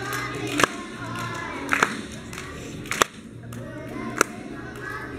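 Young children singing a song together as a group, with four sharp hand claps at an even beat, a little over a second apart.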